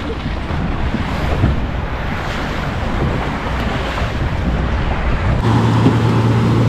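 Loud steady rushing noise, like wind buffeting the microphone on a moving vehicle; about five seconds in, a vehicle engine's steady drone comes in and holds.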